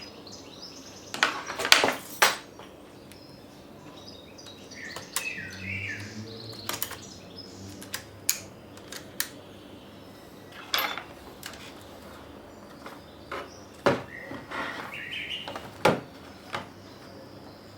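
Scattered sharp clicks and taps of a laptop's parts being handled and worked apart, the loudest cluster about a second in, with a few short high chirps between them.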